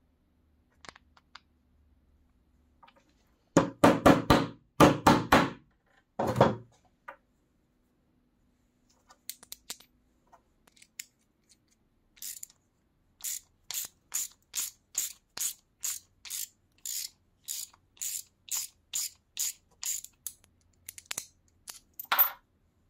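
Hand assembly of a steel bolt, nut and washer with a small wooden knob: a cluster of loud knocks about four seconds in, then a steady run of short, light metallic ticks, about two a second, for several seconds.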